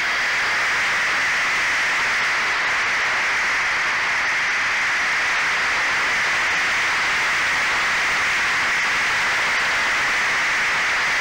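Steady rushing hiss of airflow over a small RC plane's onboard camera as it descends low to land, with no clear motor whine.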